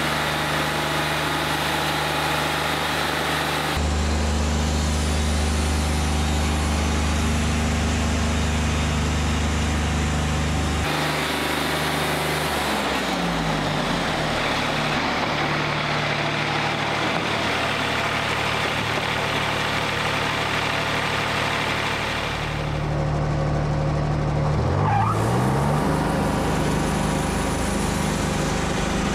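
Wood-Mizer LT40 portable sawmill running on its diesel engine while the band-saw head cuts along a cant. The engine note shifts a few times, dipping and then recovering about halfway through and again near the end.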